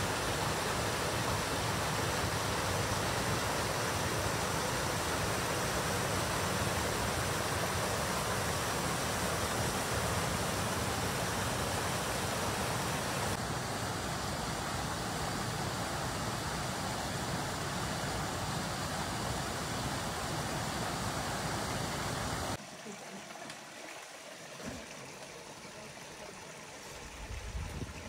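Mountain brook rushing over rocks in small cascades: a steady rush of water. It changes slightly about 13 seconds in and drops to a much quieter flow about 22 seconds in.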